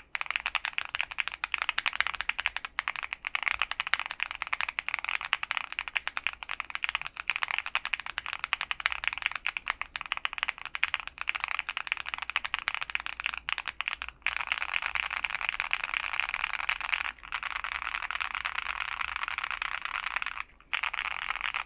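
Fast typing on a Monsgeek M3 TKL mechanical keyboard with lubed Akko Crystal Silver switches, lubed stabilizers, PE foam and a tape mod: a dense, steady stream of keystroke clacks with a full sound. The typing grows more continuous about two-thirds through and stops briefly a few times.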